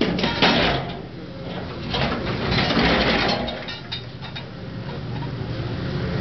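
POQUTEC PHSR 3745R-1 hydraulic scrap shear on an excavator working the end of a steel pressure tank: steel creaks and crunches in irregular bursts, loudest about half a second in and again from two to three and a half seconds. The excavator's engine drones steadily underneath.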